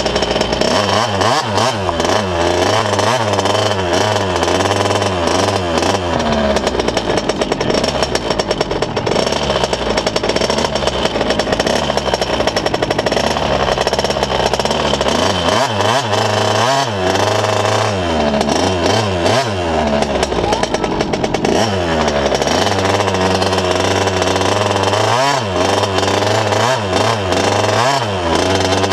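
A 50cc two-stroke motocross bike's engine running close to the microphone, its pitch rising and falling again and again as the throttle is blipped and eased off at low speed.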